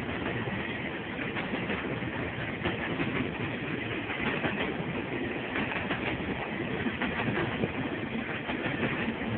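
Freight train cars rolling steadily past over jointed rail, the wheels clicking over the rail joints under a continuous rumble of wheel and rail noise.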